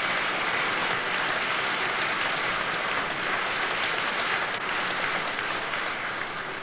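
Audience applauding, a steady dense clapping that begins to fade near the end.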